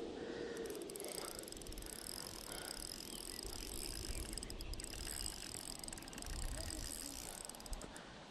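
Spinning reel's drag clicking in a fast, steady buzz as a hooked wels catfish pulls line off the spool. The buzz starts about half a second in and stops shortly before the end.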